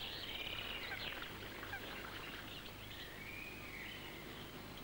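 Faint birdsong: small birds chirping and warbling, with short rising and falling phrases, over a low steady hum.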